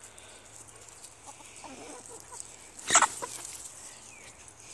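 Domestic hens clucking softly, with one short, loud squawk about three seconds in.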